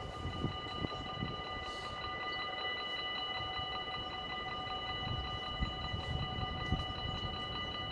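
Dutch level-crossing warning bell ringing in a rapid, even pattern that does not let up, the signal that the crossing is closing for an approaching train while the half barriers come down.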